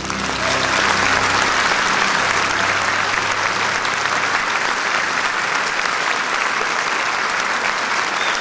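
Large concert-hall audience applauding, swelling within the first second as the orchestra's final chord ends, then holding steady.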